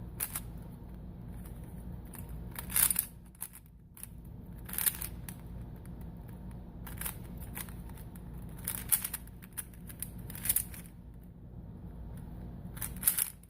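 YongJun YuLong plastic speedcube being turned by hand during a solve, its layers giving light clicks in short scattered runs.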